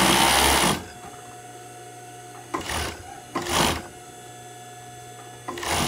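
Industrial Yamato overlock (serger) machine stitching a rolled edge in short runs: a run of under a second at the start, two brief runs around the middle and another near the end, with a steady low hum between them.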